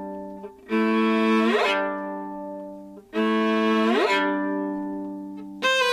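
Soundtrack music in an instrumental break with no vocals: held string chords, a new one about every two and a half seconds, each fading away. A busier musical passage starts near the end.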